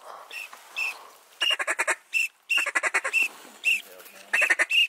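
Waterfowl calling: short, high whistled calls repeated over and over, broken by three quick chattering runs, as a flock of ducks is worked in over the decoys.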